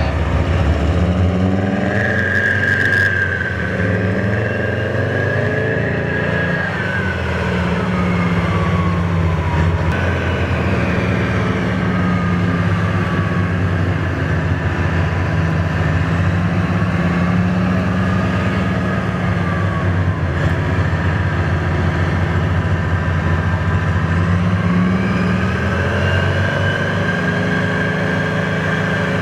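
Type 74 tank's air-cooled V10 diesel running under load as the tank drives and turns, its note rising and falling as the revs change. A higher whine glides up and down in pitch over it.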